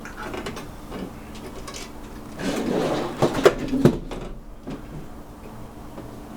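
Knocks and rattles from handling the opened LED grow light, loudest as a cluster of clatter in the middle, over a steady low hum from its cooling fans.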